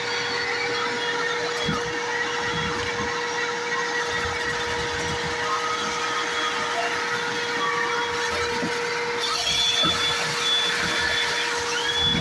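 A motor running steadily with a constant hum, driving air through a dryer vent and blowing lint and debris out of it, with light rattling from the debris.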